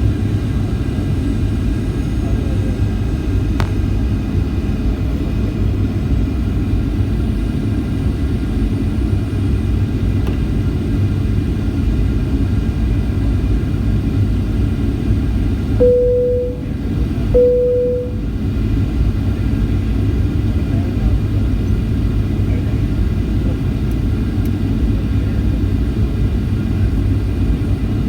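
Steady low cabin rumble of a flydubai Boeing 737 in flight: engine and airflow noise. About sixteen seconds in, two short single-pitch chime tones sound about a second and a half apart.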